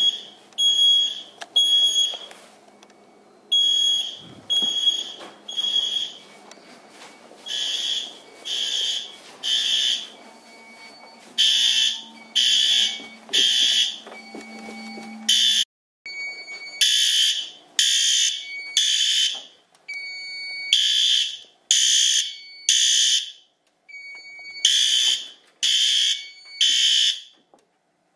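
Fire alarm horn sounding the temporal-3 evacuation signal: groups of three short, high-pitched blasts, each group followed by a longer pause, repeating over and over.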